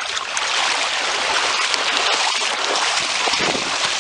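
Floodwater rushing steadily.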